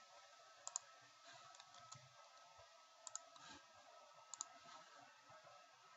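Faint clicks of a computer mouse and keyboard over near-silent room tone, a handful in all, several of them in quick pairs.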